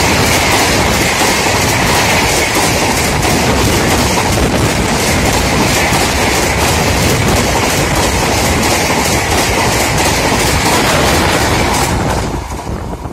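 Shatabdi Express passenger coaches passing close at speed: a loud, steady rush of wheels on rail with rapid clickety-clack over the rail joints. It drops away sharply near the end as the last coach goes by.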